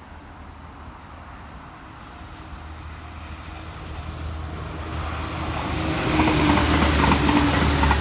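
HB-E300 series hybrid railcar approaching, its diesel-generator-and-battery drive humming with a steady mid-pitched tone. It grows steadily louder and is loudest in the last two seconds as it draws level.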